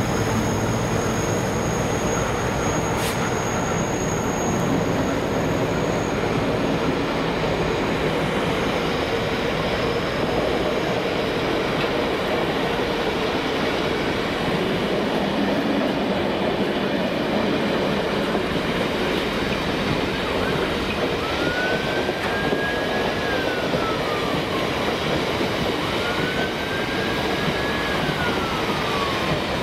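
Loaded oil tank wagons of a freight train hauled by a Class 60 diesel rolling steadily past: a continuous rush and rumble of wheels on rail, with a high wheel whine that fades in the first few seconds and a single sharp clank about three seconds in.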